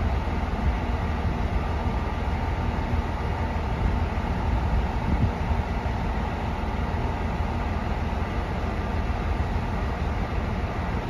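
KiHa E130 diesel railcar's engine idling with the train standing still, a steady low rumble.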